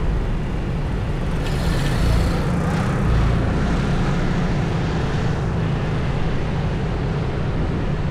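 Riding on a motorbike: a steady low rumble of the engine and wind buffeting the microphone, with a rise in hiss a couple of seconds in.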